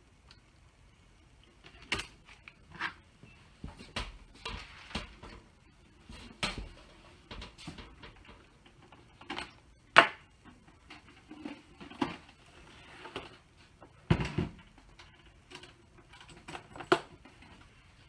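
Irregular clicks, knocks and rattles of cables and electronic equipment being handled and plugged in behind a monitor, with a sharp click about ten seconds in and a heavier thump a few seconds later.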